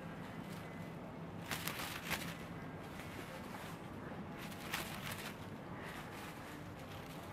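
Quiet room tone with a steady low hum, broken twice by short noisy rustles, about one and a half seconds in and again about five seconds in.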